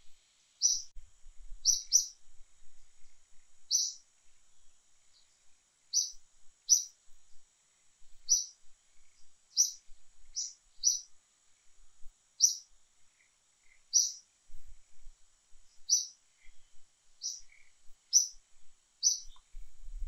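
A bird chirping: short, sharp, high-pitched notes repeated irregularly about once a second, some in quick pairs, over a faint steady high-pitched hum.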